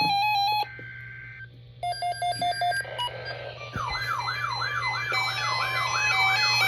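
Electronic emergency-alert tones: rapid pulsed beeps, then a short run of chopped beeps, then from about four seconds in a fast-repeating swooping, siren-like alarm tone at about two and a half sweeps a second. A steady low hum sits beneath.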